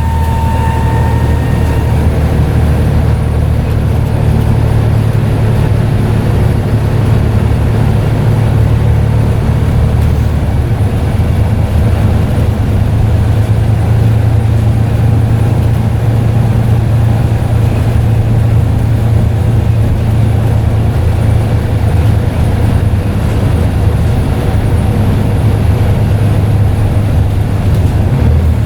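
Scania N94UD double-decker bus engine running steadily under way with a deep, even drone. A high turbo whistle fades out about a second in.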